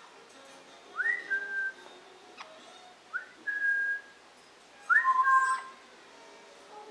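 A pet bird whistling three times, each call a quick upward slide into a held note; the third call has a lower note sounding alongside it.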